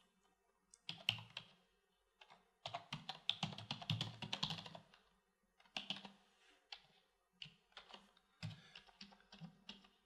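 Typing on a computer keyboard: runs of quick keystrokes with short pauses between them, the longest run about three seconds in.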